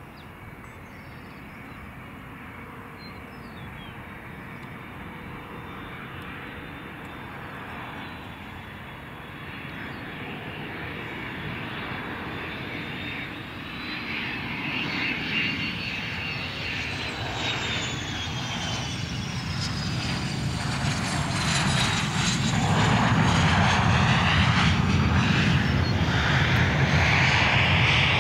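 Twin Honeywell TFE731 turbofans of an Israel Aircraft Industries Astra SPX business jet landing: a steady engine whine that grows louder as the jet comes in and touches down, with high whistling tones gliding down as it passes, then a loud full engine rush during the rollout in the last few seconds.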